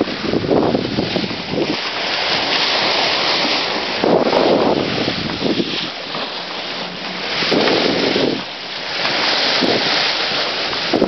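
Wind buffeting the microphone over the rush of water along a sailing yacht's hull as the bow cuts through the sea. The noise is steady, swelling louder every few seconds.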